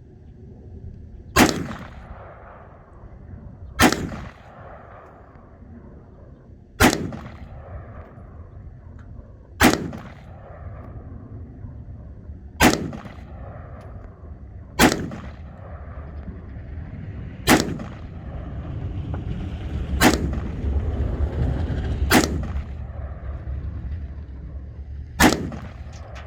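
A string of ten single gunshots from one gun, fired at a slow, steady pace of one every two to three seconds, each with a short ringing tail.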